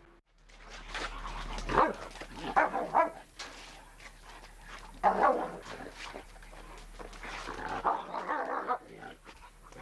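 A German Shepherd and a gray wolf scuffling, barking and whining in several short bursts. The shepherd is stepping between the wolf and the man to protect him.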